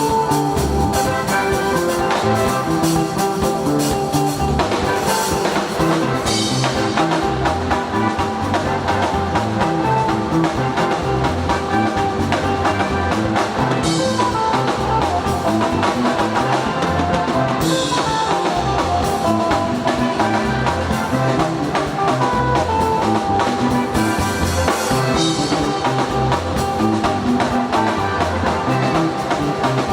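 Instrumental praise music played by a band, with a drum kit keeping a steady beat under pitched instruments.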